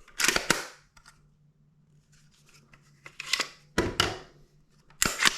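B&T P26 pistol being handled: bursts of sharp mechanical clicks and rattles, a cluster at the start, more around three to four seconds in, and another near the end.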